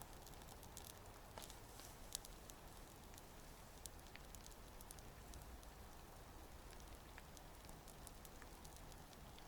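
Faint crackling of a Swedish torch log fire: scattered small pops, with one sharper pop about two seconds in.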